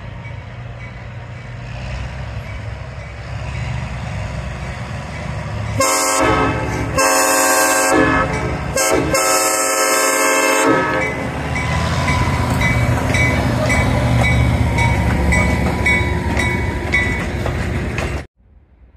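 Diesel locomotive running as it nears the crossing, its rumble growing louder. Its air horn then sounds the grade-crossing signal: long, long, short, long. As the engine passes and its passenger coaches roll by on the rails, a bell rings about twice a second; the sound cuts off suddenly near the end.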